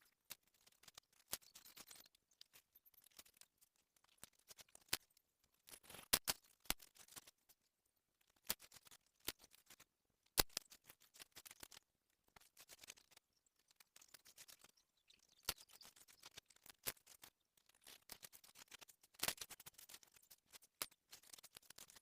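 Dry sand crumbling: irregular crisp crackles and crunches in loose clusters, with short quiet gaps between them.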